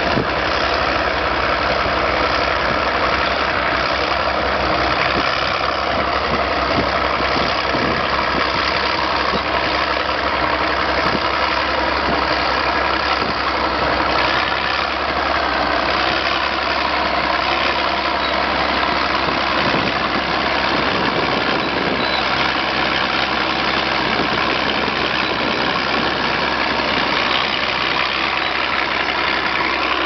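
International TD18A crawler tractor's diesel engine running steadily under load as it pulls a plough.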